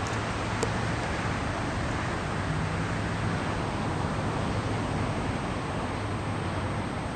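Steady outdoor background roar, an even noise with a faint low hum running under it; the animal itself makes no audible sound.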